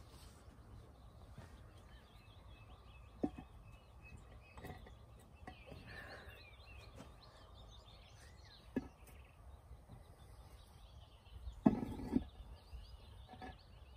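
Stone slabs knocking against each other as they are set in place around a stone fire pit: single sharp knocks about three seconds in and about nine seconds in, then a louder run of knocks near the end. Birds chirp faintly throughout.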